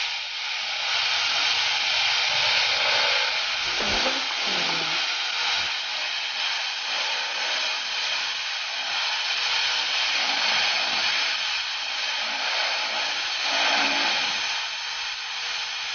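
Milling machine's end mill cutting a slot into a metal disc: a steady hissing whir of the spindle and cutter chipping the metal, with a faint steady tone under it.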